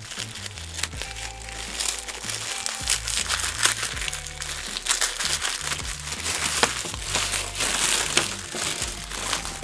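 Tissue paper being unfolded and crumpled by hand, an irregular crinkling rustle throughout, over background music with sustained low notes.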